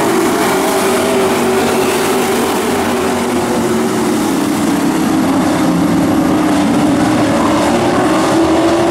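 A pack of dirt-track Pro Trucks racing, their engines making a loud, steady drone that wavers a little down and up in pitch.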